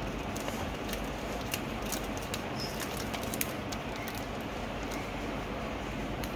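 Paper and a sticker sheet being handled: soft rustling with small scattered clicks and taps over a steady background hiss.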